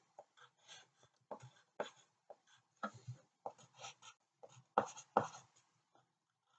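Pencil scratching on paper in short, quick shading strokes, a few a second, as an area of a drawing is coloured in; the strokes pause briefly near the end.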